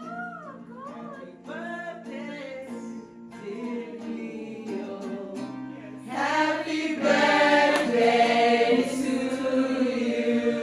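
A woman sings solo to her acoustic guitar; about six seconds in, a group of voices joins in and the singing becomes much louder, like a choir.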